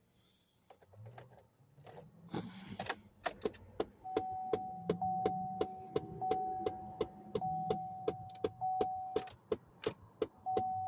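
A car's starting and electrical system clicks over and over at about three clicks a second, while a steady electronic warning tone sounds in repeated stretches from about four seconds in. The owner takes this for a low battery.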